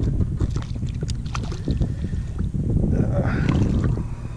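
Wind buffeting the microphone, with scattered light knocks and taps as the rod and gear are handled against a plastic kayak.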